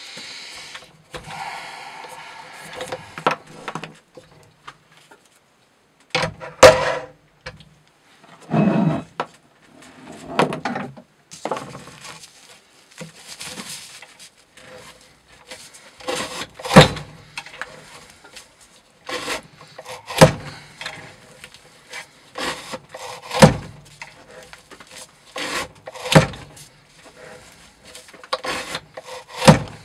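A wooden knife-testing rig being worked by hand under a weight disc: rubbing and sliding of wood and steel, with sharp wooden knocks about every three seconds in the second half.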